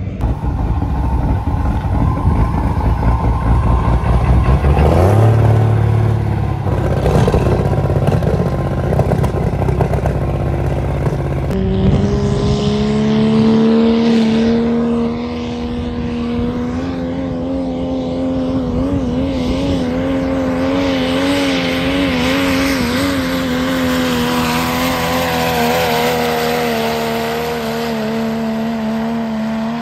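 Diesel pickup trucks pulling a weight-transfer sled at full throttle. First a deep, loud rumble with rapid pulses, then, after a cut about twelve seconds in, one engine held at high revs under load, its steady note rising a little and wavering.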